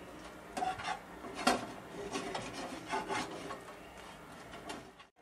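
A spatula scraping and turning bread cubes that are toasting in ghee in a frying pan: a run of irregular scrapes and light knocks, the loudest about one and a half seconds in.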